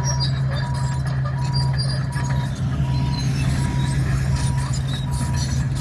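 Komatsu D61 bulldozer's diesel engine running steadily under load, with a backup alarm beeping about once every three-quarters of a second. Scattered clanks and crackles of the tracks and broken road surface are heard throughout.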